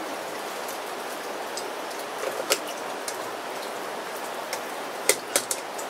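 Steady hiss of rain mixed with ham sizzling in a pan on a gas-canister camp stove. Sharp metallic clicks about two and a half seconds in and twice near the end as a clip-on pan gripper is fitted and the pan is handled.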